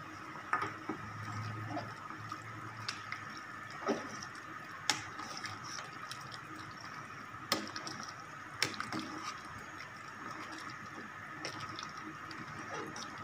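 Metal ladle stirring a pot of tom yam soup full of vegetables and fish balls: liquid sloshing, with a few sharp clinks of the ladle against the stainless steel pot.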